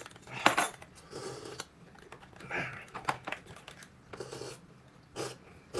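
Scattered soft clicks, taps and rustles of small objects being handled, with brief pauses between them.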